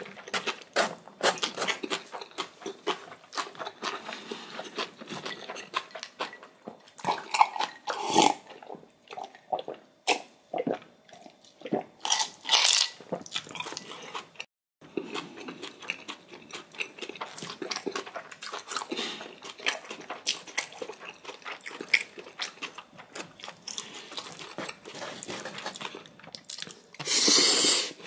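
Close-miked eating sounds of someone eating instant ramen noodles: steady chewing with many sharp crunchy bites, and a longer noisy stretch near the end.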